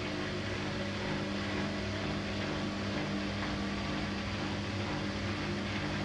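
Siemens Siwamat IQ 716 front-loading washing machine running with its drum turning a load of laundry: a steady motor hum, one low tone pulsing evenly, over an even noise.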